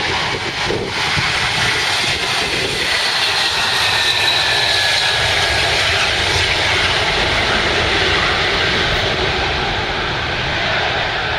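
Antonov An-124 Ruslan's four D-18T turbofan engines at takeoff power as the freighter rolls and lifts off: a loud, steady jet roar with a high whine that falls in pitch a few seconds in.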